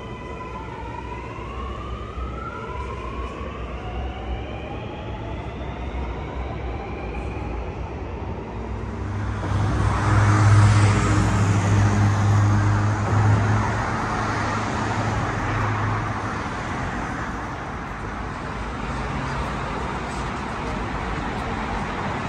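Alstom Metropolis metro train pulling out, its traction motors whining in several tones that rise in steps as it gathers speed. About nine seconds in, the whine gives way to a louder rush of street traffic, with a heavy vehicle's engine humming steadily for several seconds.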